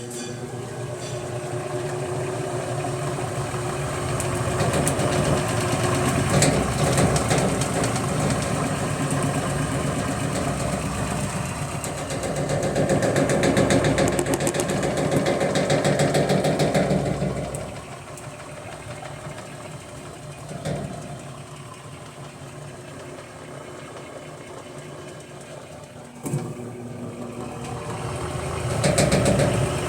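Electrolux LTC10 top-load washing machine running with a loud, harsh mechanical noise. It builds up over the first few seconds, is loudest for a stretch in the middle, drops off suddenly, then swells again near the end. The noise is later traced to a broken clamp.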